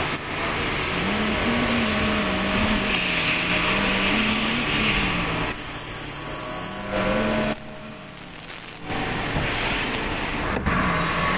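Tsugami CNC lathe running, a steady machine hum that wavers slightly in pitch over a hiss, with abrupt changes in the sound a few times partway through.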